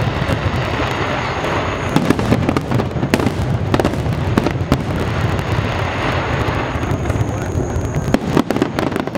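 Aerial fireworks display: shells bursting one after another, with repeated sharp bangs at irregular intervals over a continuous dense crackling.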